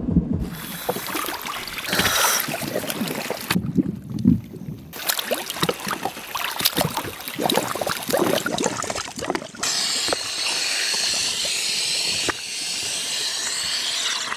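Sea water splashing and sloshing around scuba divers floating and moving their arms at the surface, in many short splashes. From about ten seconds in it turns to a steadier hissing rush of water.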